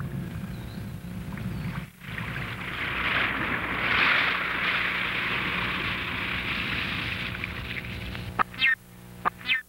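Animated sound effects: a car's low engine hum that cuts off about two seconds in, then a rushing, windy noise, then near the end several short squawking electronic blips as a round green robot moves.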